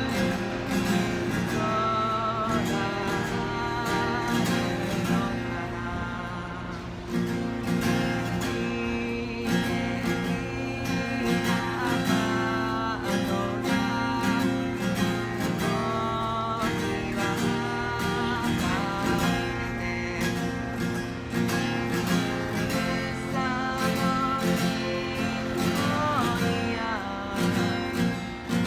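A singer's voice over a strummed acoustic guitar, performing a song live.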